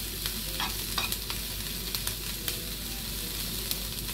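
Chopped onions and dried red chillies sizzling in hot oil in a frying pan, stirred with a metal spoon that clicks and scrapes against the pan several times. The onions are being fried for a tempering until golden.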